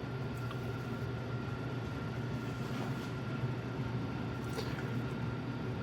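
Steady low hum with a faint, thin high tone above it, unchanging throughout.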